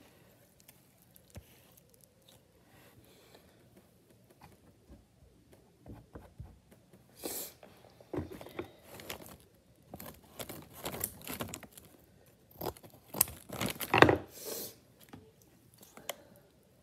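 Plaster cloth being handled: torn and crinkled by hand in irregular rustling bursts through the second half, the loudest about fourteen seconds in.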